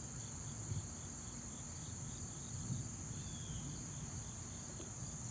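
Steady, high-pitched insect chorus of summer crickets, one unbroken shrill tone, over a low steady outdoor noise. A faint short falling chirp comes a little past three seconds in.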